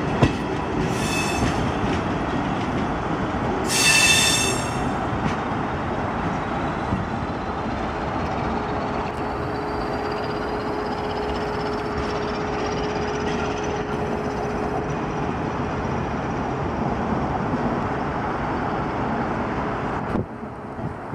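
Suburban train running on the track with a steady rumble. There is a brief high wheel squeal about a second in and a louder one at about four seconds, and a faint steady whine with a slowly rising high tone in the middle. The sound cuts off suddenly near the end.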